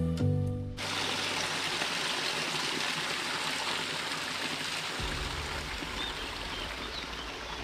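Small stream of running water, a steady rushing.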